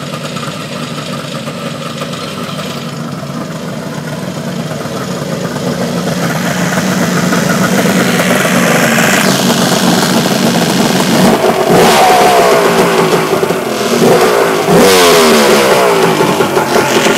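Yamaha GP1200 WaveRunner's freshly rebuilt three-cylinder two-stroke engine running out of the water, still to be run in. It grows louder about halfway through, and in the second half the throttle is blipped a couple of times, the pitch rising and falling.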